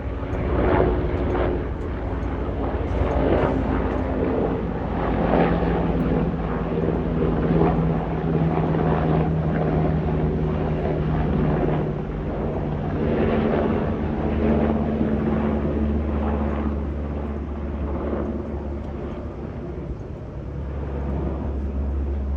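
Black Hawk helicopter's rotors and twin turboshaft engines running: a steady low drone with a pulsing rush of noise that swells and fades every few seconds.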